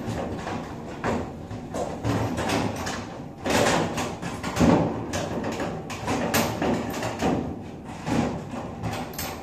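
A backpack being pushed and shoved into a narrow metal locker that is too small for it: irregular rustling and scraping with knocks against the locker.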